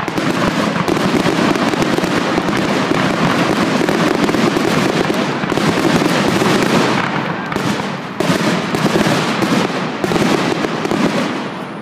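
Fireworks display: a dense, continuous barrage of aerial shells bursting and crackling, the bangs overlapping with no gaps between them. The barrage dips briefly about eight seconds in and eases off near the end.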